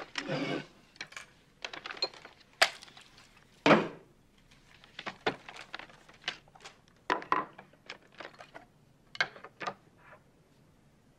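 Objects being unpacked and set out on a table: a paper bag rustling, then a string of clicks and knocks as a plastic food box, a wooden board, chopsticks and a glass soy-sauce bottle are handled and put down, with one heavier thump a little under four seconds in.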